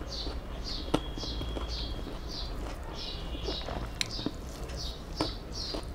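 A high, short chirp repeating about twice a second, with a few sharp clicks of fingers against a steel plate as rice is mixed by hand.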